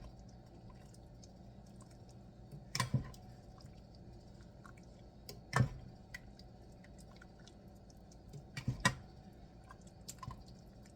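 Light knocks and clicks, about three louder ones a few seconds apart plus smaller ticks, over a faint steady hum.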